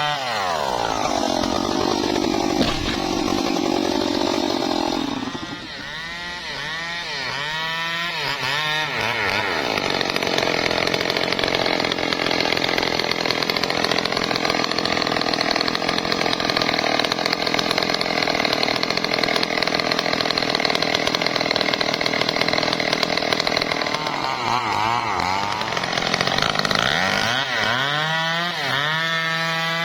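Gasoline chainsaw cutting wood. It runs at high, steady revs through a long cut, with the throttle rising and falling between cuts early and late.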